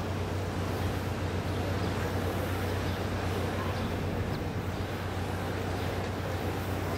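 Steady low hum of the steamship ALPENA's machinery running while she lies in the lock, over a constant outdoor background noise.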